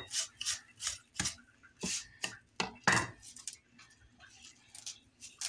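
Chef's knife chopping fresh parsley on a bamboo cutting board: irregular knocks of the blade on the wood, several a second for about three seconds, then the chopping stops.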